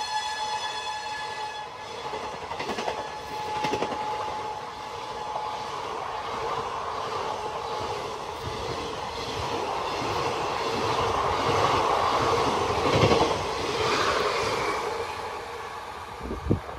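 ICF passenger coaches of an express train running through a station at speed: a steady rumble of wheels on rail, with clacks over the rail joints. The locomotive's horn sounds faintly for the first few seconds, and there is a sharp knock near the end.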